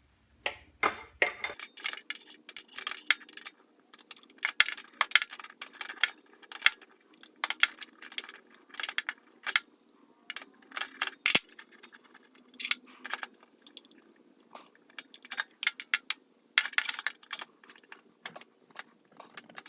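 Metal wrenches clinking and clicking against the table saw's blade, arbor nut and cast parts while the blade is fitted: many short, sharp, irregular taps and rattles.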